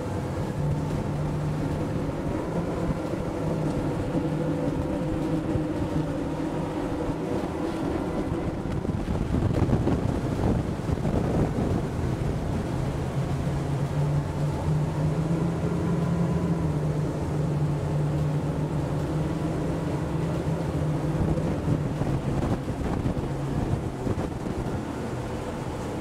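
Blue Cat 30 catamaran's outboard engines running at speed through hard turns, the engine note dipping and then rising again, with wind buffeting the microphone and water rushing along the hull. About ten seconds in, a louder rush of wind and spray briefly covers the engines.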